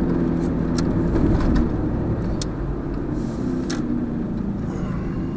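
A car's engine and road noise heard from inside the cabin while driving, a steady low hum, with three sharp clicks in the middle.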